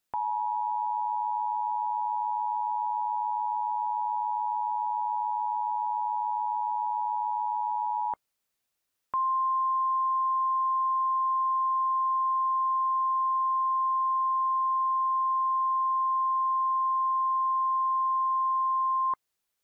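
Emergency Alert System tones. First the two-tone attention signal, two pitches sounding together, holds steady for about eight seconds and cuts off. After about a second's break, a single steady weather-alert tone sounds for about ten seconds, the alarm that comes before a warning message.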